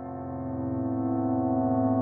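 Ambient background music: a sustained, ringing gong-like drone of many steady tones that gradually swells louder.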